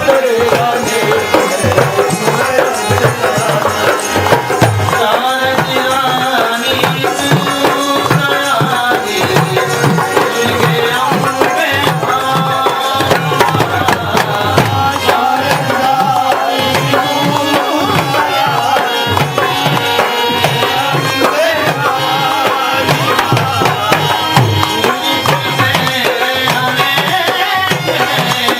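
Devotional bhajan music: tabla playing a dense, steady rhythm under a wavering melody.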